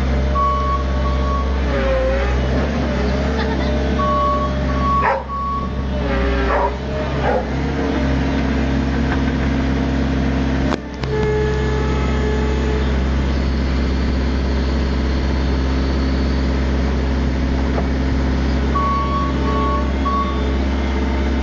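New Holland L160 skid steer running, its engine steady under a strong low hum, with a few rises and falls in pitch as it works. A backup alarm beeps in short spells near the start, about four seconds in and near the end.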